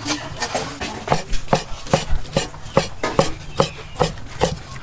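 Meat cleaver chopping cooked pork on a round wooden chopping block, in steady strikes about two or three a second.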